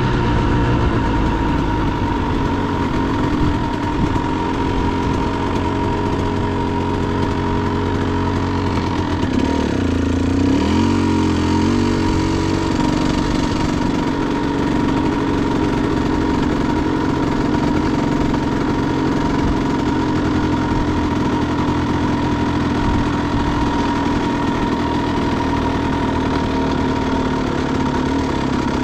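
Dirt bike engine running steadily under the rider. Its pitch drops about nine seconds in and rises again a couple of seconds later as the bike slows and picks up speed.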